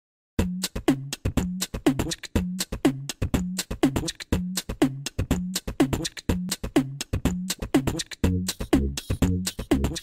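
Intro beat of fast, sharp percussive hits, each followed by a short falling tone, in a steady repeating pattern about two bars a second, starting about half a second in. A heavier, deeper hit joins near the end.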